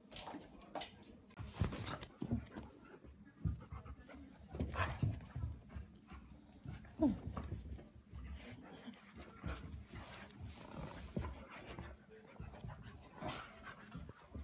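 A German Shepherd and a black puppy playing together: irregular scuffling and movement, with short dog vocal noises now and then, one of them falling in pitch about halfway through.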